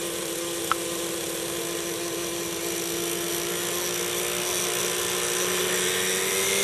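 Radio-controlled helicopter carrying burning fireworks, its rotor and drive running with a steady tone that rises slightly near the end, over a continuous hiss. A single sharp crack comes less than a second in.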